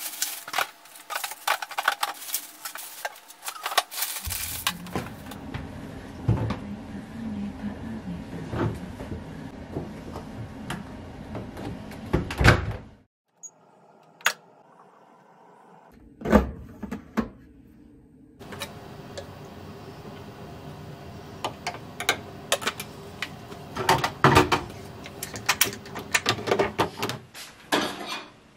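Household handling noises: a run of clicks, knocks and bumps from doors, appliances and kitchen items being opened, shut and handled, broken by a short quiet spell about halfway through.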